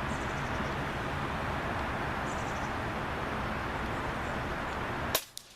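Steady outdoor background noise, then near the end a single sharp shot from a Vulcan 2 .30 cal PCP air rifle, with a fainter click a moment later, after which the background drops away suddenly.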